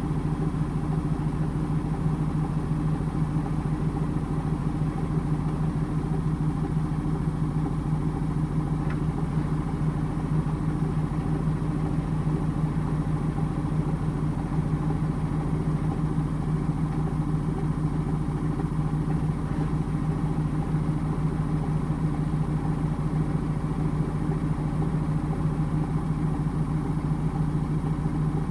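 Indesit washing machine running steadily on its rinse and intermediate spin programme with a full cotton load, a constant motor hum with a fine rapid flutter.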